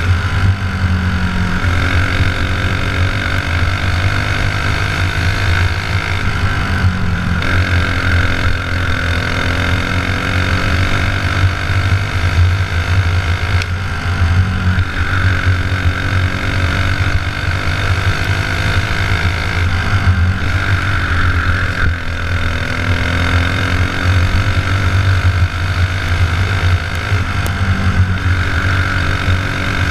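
Racing kart engine running hard, heard from the driver's seat; its pitch dips and climbs again about every six or seven seconds as the kart slows for the turns and accelerates down the straights, lap after lap.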